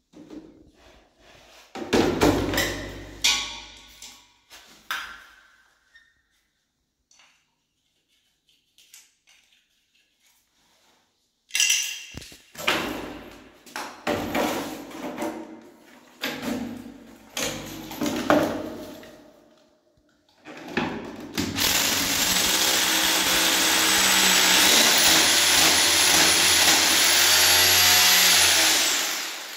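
Corded electric drill running for about eight seconds, boring into the tiled wall, its steady whine stepping up in pitch about halfway through. Before it, scattered knocks and clatter of tools and fittings being handled.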